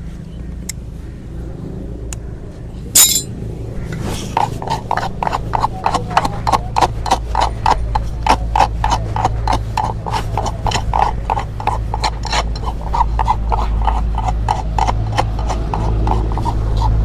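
Hoof rasp worked over a horse's hoof in quick, regular strokes, about three a second, starting about four seconds in, over a steady low hum. A single sharp click comes about three seconds in.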